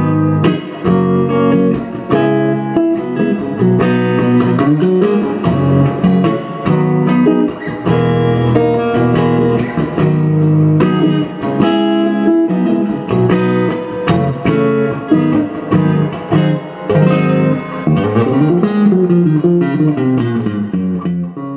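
Solo electric guitar playing a fast run of plucked single notes and chords, with some notes bent up and down in pitch.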